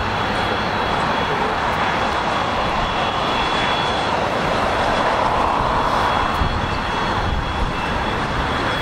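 Airliner engines making a steady rush of noise, with a thin high whine through the first half, swelling slightly about halfway through.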